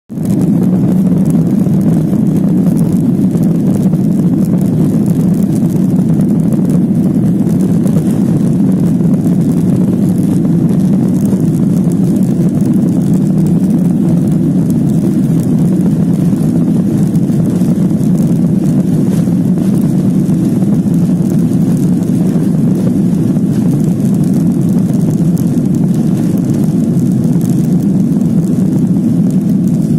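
Passenger jet engines at takeoff thrust, heard inside the cabin during the takeoff roll: a loud, steady low rumble that holds unchanged throughout.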